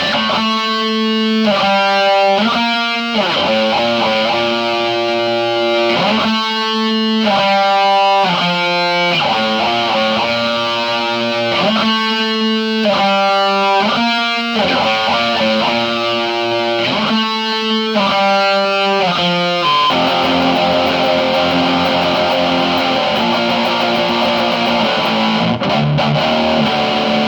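Electric guitar played through a Friedman Sir-Compre compressor pedal: chords struck and let ring in a repeating pattern, changing about a second in and every second or so after. About two-thirds of the way through it turns to a denser, continuously strummed passage.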